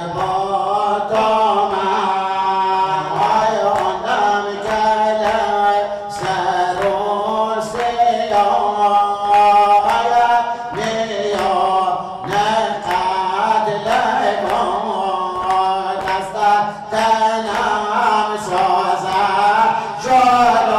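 A man singing a Muharram noheh, a Shia mourning lament, through a microphone in long, wavering held phrases with short breaks between them. A steady low note sounds beneath the singing.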